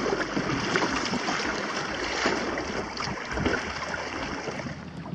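Lake water rushing and splashing against the hulls of a Hobie Adventure Island sailing trimaran kayak under way, in irregular surges.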